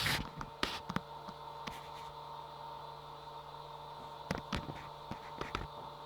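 Homemade micro 3D printer built from e-waste humming with a steady electrical whine, with scattered light clicks and taps.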